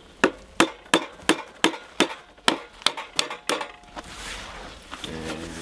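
A rapid, even series of sharp knocks, about three a second, stopping a little past halfway.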